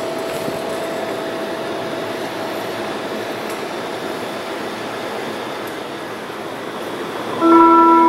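Church bells: one tone dies away under a steady rumbling noise. About seven seconds in, the bells strike again, louder, several notes at once.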